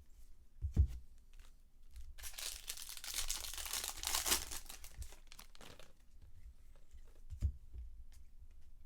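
A baseball card pack's wrapper being torn open and crinkled for about three and a half seconds. There is a dull thump about a second in and another near the end.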